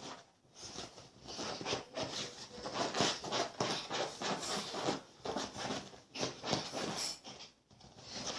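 A dog making a run of irregular, noisy, scuffling sounds close to the microphone, broken by a few short pauses.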